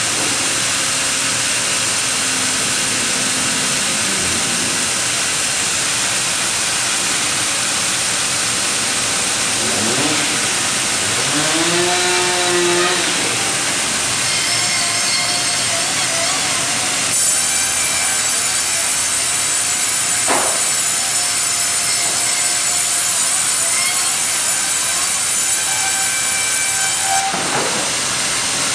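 Ustunkarli UHM 140 H vertical log bandsaw running and sawing through a log on a hydraulic log carriage, a steady loud machine noise. About ten to thirteen seconds in, a tone rises and falls, and from about seventeen to twenty-seven seconds a high whine sits over the noise.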